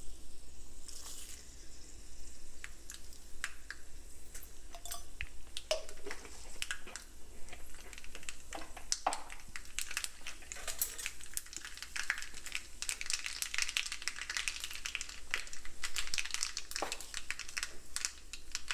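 Mustard seeds popping and crackling in hot oil with a sizzle; the pops come thicker from about halfway through.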